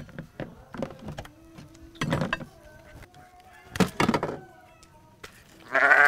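Farm animals calling: a few short clucks from chickens, then a goat bleating loudly near the end.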